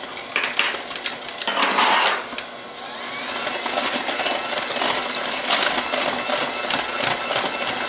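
KitchenAid electric hand mixer running, its beaters whirring through thick creamed butter-and-sugar batter in a glass bowl. A brief louder rattle comes about a second and a half in, and the whir grows louder from about three seconds in.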